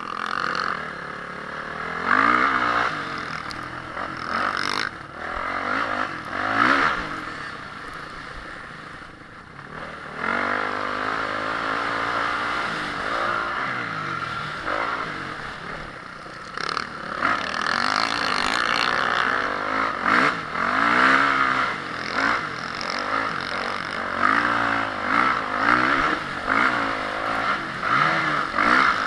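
Honda CRF450R motocross bike's single-cylinder four-stroke engine revving up and down over and over, the pitch climbing and dropping every second or two as the throttle is opened and shut through gear changes.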